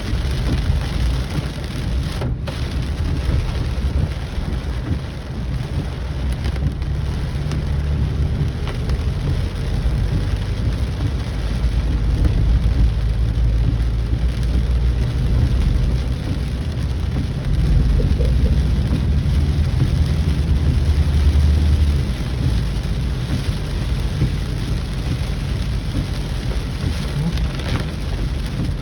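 Heavy rain falling steadily, with a low rumble underneath that swells twice, about halfway through and again a few seconds later.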